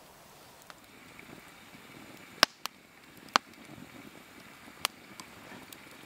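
Wood fire of charred logs over glowing embers crackling: a handful of sharp, separate pops over a quiet background, the loudest about two and a half seconds in.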